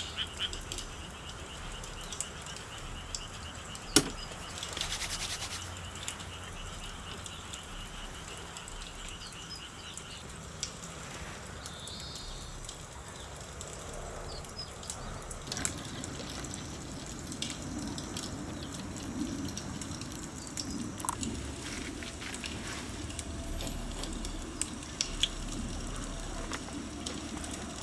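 Frogs calling until about ten seconds in, with one sharp knock about four seconds in and small clicks of cookware being handled. From about halfway, a low steady rush sets in as a cartridge gas camp stove burner runs under a kettle.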